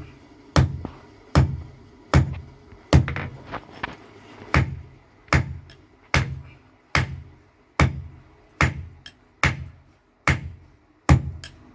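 Hand hammer striking a red-hot iron bar on an anvil at an even pace, about one blow every 0.8 seconds, each blow with a short metallic ring, as the bar is drawn out into a chisel point.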